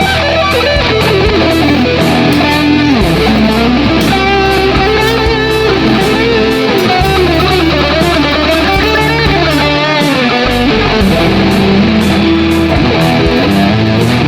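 Difergio MSV humbucker electric guitar playing a melodic lead line with string bends, over sustained low bass notes.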